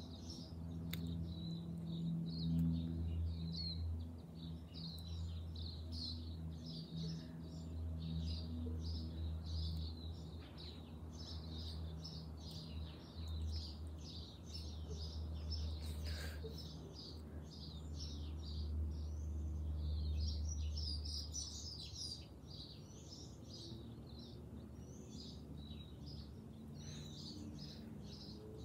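Many small birds chirping and singing continuously, a dense chorus of short, high calls. Underneath runs a low, steady hum that fades out about three-quarters of the way through.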